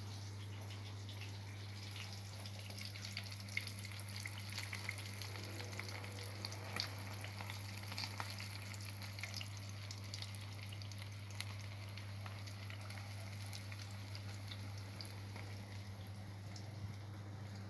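Dried khô frying in hot oil in a pan: irregular popping and crackling sizzle, busiest in the middle, over a steady low electrical hum.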